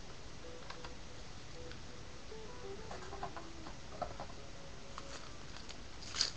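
Trading cards and their foil wrappers being handled, with faint light clicks and ticks and a couple of sharper clicks near the end. A faint tune plays underneath.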